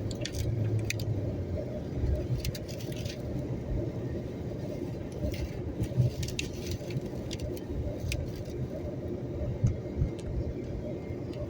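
Storm wind gusting against the microphone: a heavy, fluctuating low rumble, with scattered sharp clicks and rattles.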